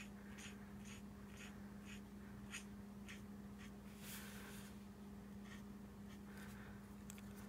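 Faint scratching of a Stampin' Blends alcohol marker tip on cardstock, short colouring strokes about twice a second, over a steady low hum.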